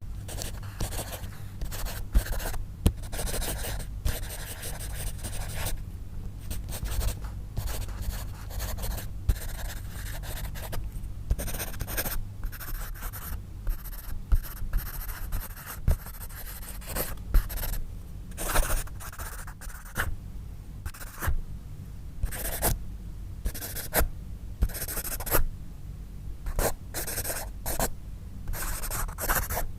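Pencil writing on paper: short scratchy strokes in uneven runs with brief pauses between them and occasional light taps of the lead.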